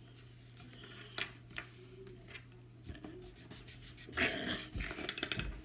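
Pencil scratching lightly on paper while drawing, over a low steady hum, with a couple of light taps just over a second in. Near the end comes a louder, short breathy sound.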